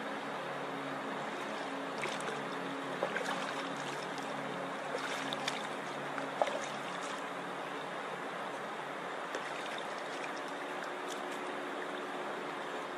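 Beaverkill trout stream running, a steady rushing of water.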